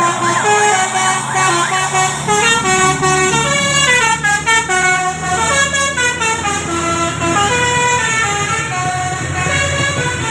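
Bus 'telolet basuri' musical horn playing a tune of stepped, held notes, with quick falling runs in the middle, over a steady low engine rumble.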